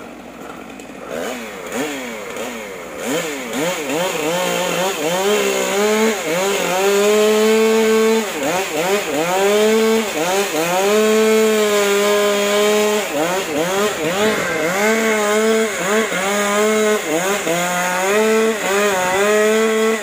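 Two-stroke chainsaw cutting wood. It revs up and down repeatedly from about a second in and grows louder over the first few seconds, then is held at high revs for a few seconds at a time, dipping and rising again between.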